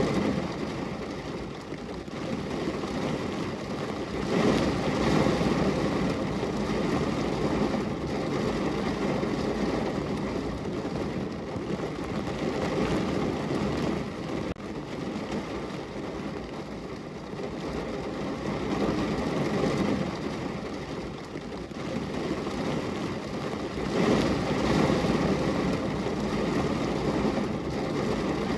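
Steady rain falling on a window, a continuous hiss that swells louder twice, about four seconds in and again near the end.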